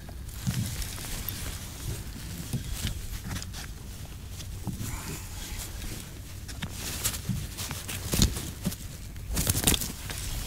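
Choppy water slapping against a plastic fishing kayak's hull: irregular knocks and splashes over a low steady rumble, the loudest about eight seconds in and again near the end.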